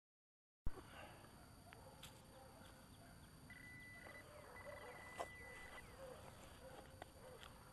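Faint digging in soil and dry leaves with a hand digger, with a few sharp knocks of the tool, and a metal detecting pinpointer giving a steady high beep twice, the second time longer, as it closes on a buried coin.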